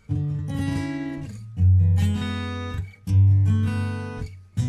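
Background music: an acoustic guitar strumming chords, a new chord about every second and a half, each left to ring and fade.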